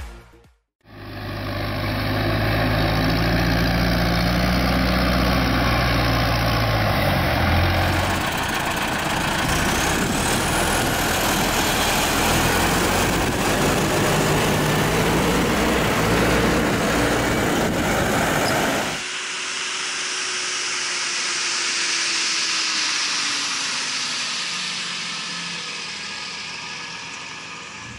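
Farm tractors working in the field, their diesel engines running steadily while pulling implements. The sound comes in three short stretches, with sudden changes between them, after a brief moment of silence at the start.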